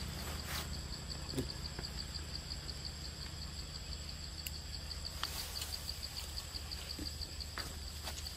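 Forest insect chirping in a steady pulsing rhythm, about six pulses a second, over a low steady rumble, with a few faint clicks.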